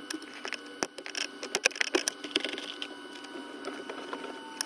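Irregular clicks and scraping of a thin screwdriver working in the airbag release hole at the back of a Skoda Octavia mk2 steering wheel, unclipping the airbag. The clicks are densest in the first three seconds, then thin out.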